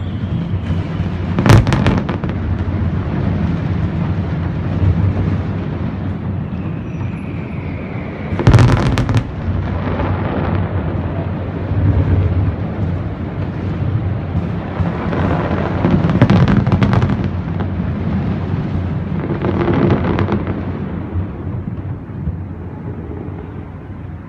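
Aerial fireworks bursting: two sharp booms about seven seconds apart, then clusters of crackling bursts, over a continuous rumble of explosions that dies down near the end.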